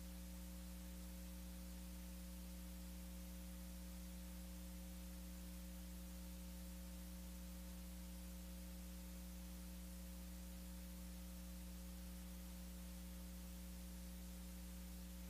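Faint, steady electrical mains hum with several fixed overtones over a soft hiss, with no room sound behind it. It is typical of an audio line whose live feed has dropped out.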